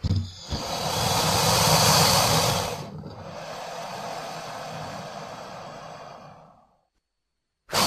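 Baryonyx dinosaur sound effect: a long, breathy exhaled call, loudest for its first two and a half seconds, then carrying on more quietly and fading out about seven seconds in.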